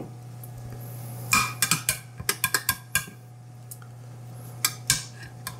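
A spoon clinking and scraping against a dish while tomato sauce is spread thinly over the bottom of a baking dish: a quick run of light clinks starting about a second in, and a few more near the end, over a steady low hum.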